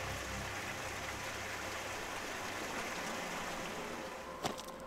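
Steady rushing outdoor noise, with one sharp click about four and a half seconds in.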